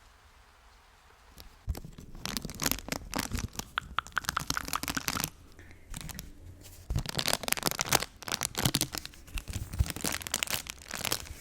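Crinkly paper crumpled and rustled close to the microphone in dense crackling bursts, starting about a second and a half in, pausing briefly in the middle, then resuming.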